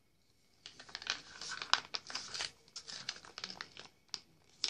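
Plastic mayonnaise pouch crinkling and crackling as it is handled, starting about a second in as a dense run of sharp crackles.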